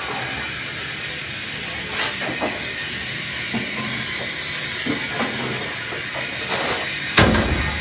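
Steam tank engine standing with a steady hiss of steam, broken by a few short clicks and knocks and one heavy low thump near the end.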